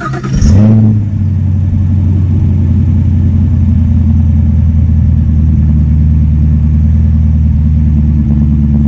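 2018 Camaro SS's 6.2-litre V8 starting up: it fires with a loud flare about half a second in, then settles into a steady fast idle.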